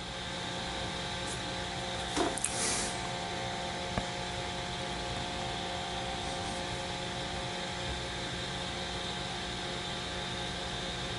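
Steady mechanical hum made of a few fixed tones over a low hiss, with a brief rustle about two seconds in and a single click about four seconds in.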